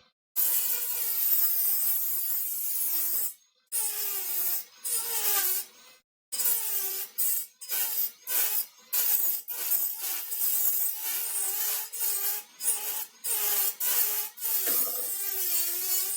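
Rotary tool grinding and cutting into a computer's metal heatsink in short spells, its motor pitch wavering as it bites into the metal. The sound cuts in and out abruptly several times.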